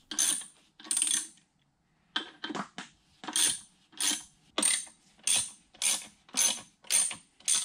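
Hex key turning the socket head cap screws that draw a bearing cap down onto a Bridgeport mill's belt housing, with a short metallic click-scrape on each stroke. There are two strokes, a brief pause, then a steady run of a little under two strokes a second. The screws are being tightened a little at a time so the tight-fitting bearing seats evenly.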